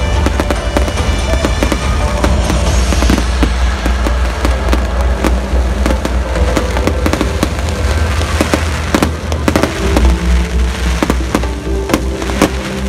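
Fireworks going off in quick succession, a dense run of sharp bangs and crackles, with music playing underneath.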